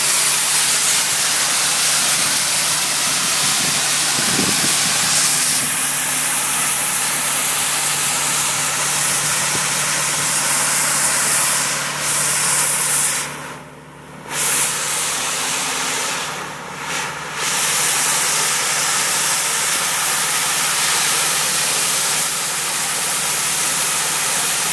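Dry ice blasting nozzle blasting a boat hull, a loud steady rushing hiss over a low steady hum. The blast stops abruptly for about a second roughly halfway through, starts again, and cuts out once more briefly soon after.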